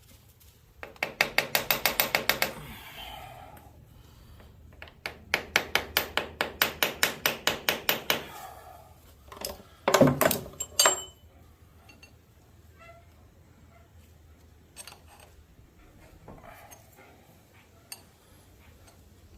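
Hammer tapping on a shift lever of a 1943 Monarch 18CBB lathe headstock to drive it off its stuck shaft: two rapid runs of metal strikes, then a few louder blows about ten seconds in. After that come scattered light metal clinks.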